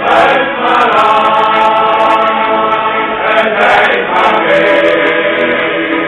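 Male shanty choir singing in unison-style chorus over accordion accompaniment, the voices coming in together loudly right at the start.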